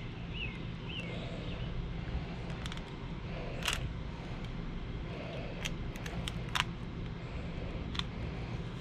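A fillet knife works quietly through a sea bass on a cutting board, with a few sharp, isolated clicks spread through, over a steady low background hum. Faint short chirps come twice near the start.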